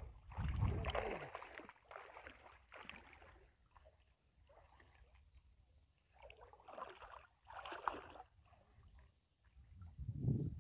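Water sloshing and splashing in short, irregular bursts, with quieter stretches between, as it is stirred during net fishing.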